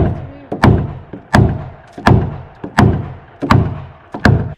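Seven heavy hammer blows on a block, about 0.7 s apart, each a sharp crack with a low thud. A structural insulated wall panel held by set adhesive foam is being beaten over to close the corner gap.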